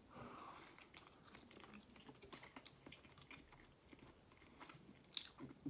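Faint close-up sounds of a person biting into and chewing a soft buffalo chicken tortilla wrap, with small wet crackles of the mouth throughout. A brief louder hissy noise comes near the end.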